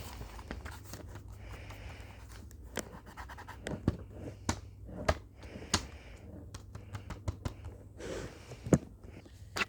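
Heavy breathing close to the microphone, a slow breath every few seconds, with scattered sharp clicks and scratches from a blind bag being handled.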